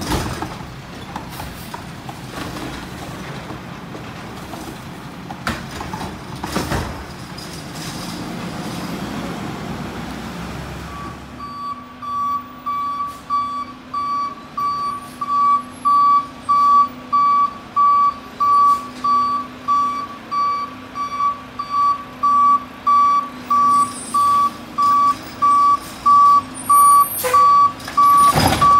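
Mack LR garbage truck running, then about eleven seconds in its reversing alarm starts beeping steadily, about one and a half beeps a second, growing louder as the truck backs up.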